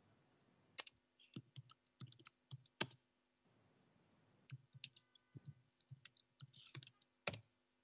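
Near silence broken by faint, irregular clicks and taps in two loose runs, the sharpest about three seconds in and near the end.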